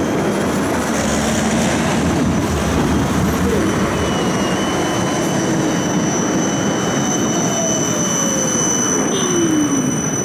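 Tram running on its rails, heard from inside: a steady rumble of wheels on track with thin high-pitched squealing tones, and a motor whine that falls in pitch over the last few seconds as the tram slows into a stop.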